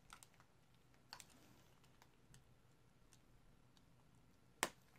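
A few faint clicks and taps of small plastic parts as a ribbon cable connector is pressed into place in a tablet's screen assembly, with one sharper click near the end.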